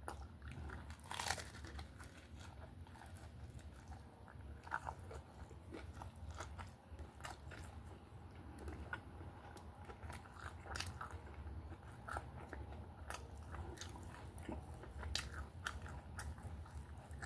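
A person biting into and chewing a toasted Reuben sandwich, with frequent short crunches of the toasted bread throughout.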